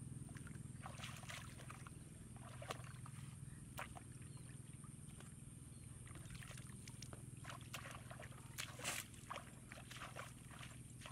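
Shallow muddy field water splashing and sloshing as it is waded through and bailed out with a plastic bucket: scattered small splashes, with a louder splash about nine seconds in, over a steady low hum.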